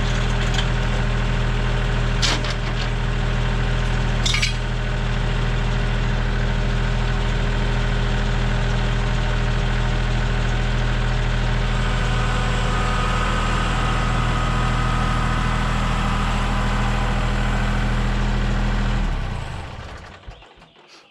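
Norwood MX34 portable bandsaw mill's gas engine running steadily, with a couple of short metallic clinks in the first few seconds. Near the end the engine shuts off and winds down.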